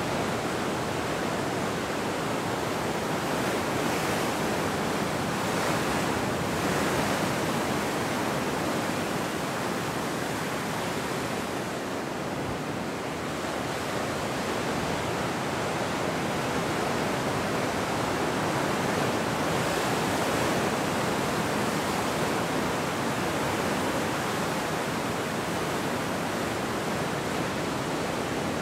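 Ocean surf breaking and washing in foam around shoreline rocks: a continuous rushing wash that swells gently as waves come in, with a slight lull about twelve seconds in.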